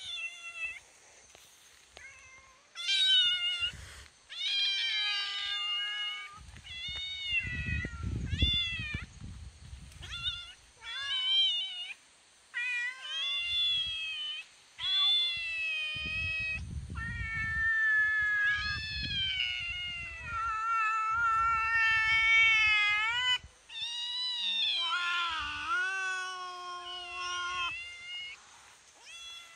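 Kitten meowing over and over, high-pitched calls of up to two seconds each, some rising and falling. Near the end comes a lower, drawn-out cat call, and low muffled rumbles come and go.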